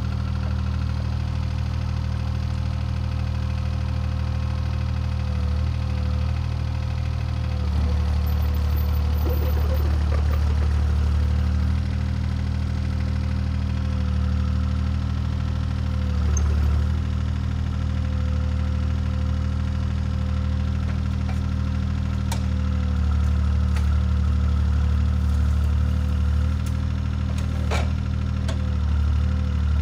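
CAT 303C CR mini excavator's diesel engine running steadily, its pitch dipping slightly a few times, with a couple of sharp clanks in the second half.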